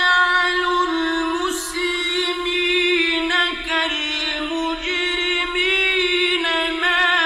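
A solo male Quran reciter chanting melodically in mujawwad style, drawing out long ornamented notes that waver up and down in pitch with hardly a pause for breath.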